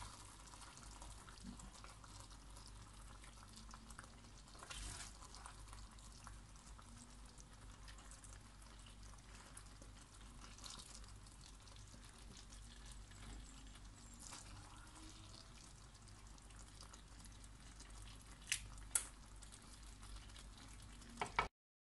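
Faint stirring and scooping of tagliatelle in a cream sauce in a frying pan, with a few light clicks of the serving utensil against the pan and plate; the sound cuts off abruptly near the end.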